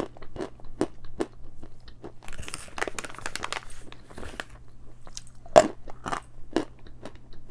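A person crunching and chewing a piece of chalk in the mouth: a string of sharp, irregular crunches that come thickest from about two to three and a half seconds in, with one loud crunch about five and a half seconds in.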